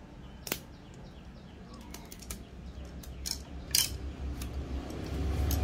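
Screwdrivers being handled and set down on a hard surface: a few scattered sharp clicks and light clinks.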